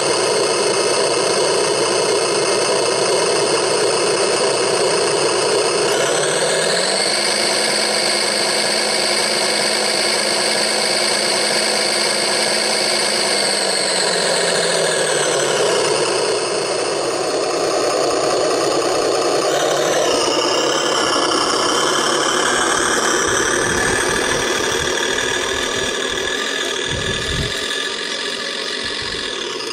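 Engine sound simulator on a homemade RC tractor playing a tractor engine running at idle, revving up about six seconds in, holding, then settling back down around fourteen seconds; the engine sound changes again about twenty seconds in.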